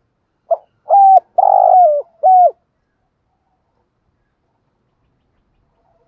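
Caged decoy spotted dove cooing close up: a short opening note, then three coos in quick succession, the third the longest and dropping in pitch at its end. The call is over within about two seconds.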